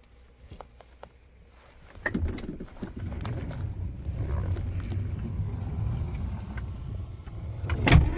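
Rustling and handling noise with scattered small clicks and rattles, starting about two seconds in and ending in a loud thump near the end.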